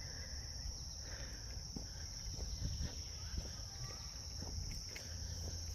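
Steady high-pitched drone of crickets, with soft footsteps on the trail and a low wind rumble underneath.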